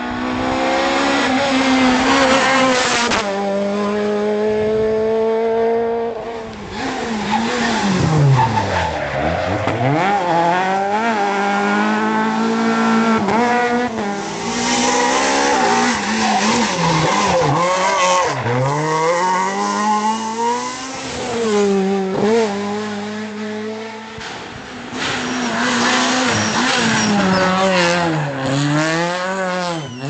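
Renault Clio R3 rally cars driven hard, one after another: the engines rev high and change gear, their pitch dropping sharply on braking and downshifts about a third of the way in and again near two-thirds, then climbing again as the cars accelerate.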